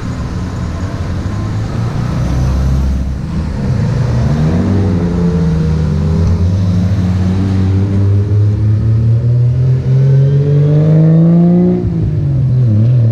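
Classic cars driving past one after another and accelerating away, their engine notes rising as they pull through the gears. The loudest engine climbs in pitch near the end, then drops suddenly at a gear change.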